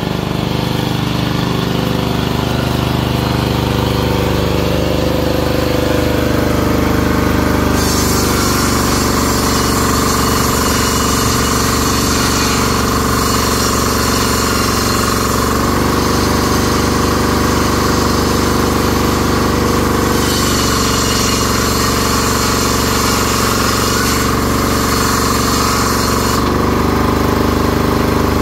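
An engine running steadily, with a hiss that comes and goes in stretches of several seconds.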